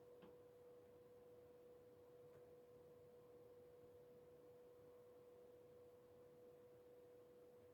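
Near silence, with a faint steady electronic whine at one pitch and a faint click just after the start.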